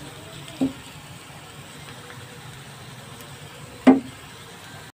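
Chopped onions sizzling steadily in hot oil in a non-stick frying pan while being stirred with a wooden spatula, which knocks against the pan twice, the second knock loud, near the end.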